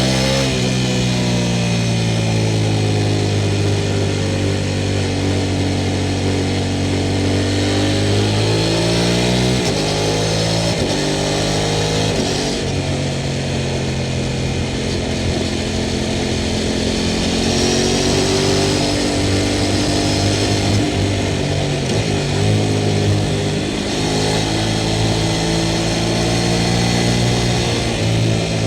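Sport motorcycle engine under way, its pitch rising and falling with the revs. Its note drops suddenly about ten seconds in.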